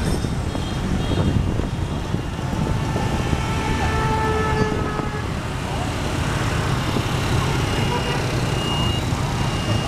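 Motorbike and scooter traffic running steadily, heard from a moving scooter, with a dense low rumble. A horn sounds for about two seconds a few seconds in.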